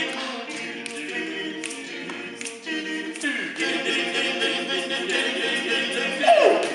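Male vocal quartet singing a cappella in close harmony. A voice swoops down in pitch about three seconds in, and again, louder, near the end.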